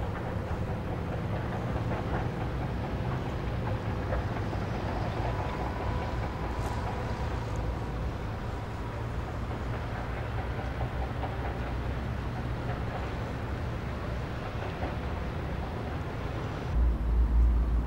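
Steady low rumble and hiss of outdoor background noise, with a louder low rumble starting about a second before the end.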